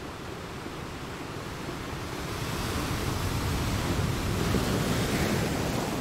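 Blizzard wind blowing hard, rumbling on the microphone. It builds into a stronger gust a few seconds in, then eases slightly.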